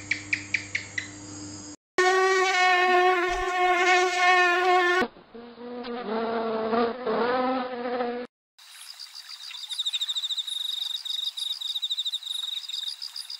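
A string of small-animal sounds: a house gecko's quick run of sharp chirping clicks, then the wavering buzz of a fly's wings in flight, then rapid, high insect chirping.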